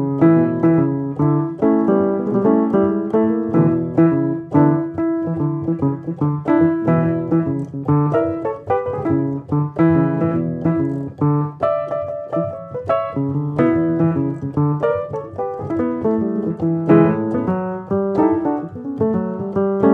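Background music played on piano, a steady run of notes with no break.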